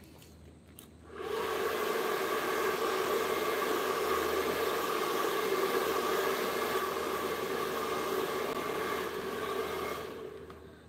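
A small electric fan-type blower running with a steady rush of air and a hum. It switches on about a second in and winds down near the end.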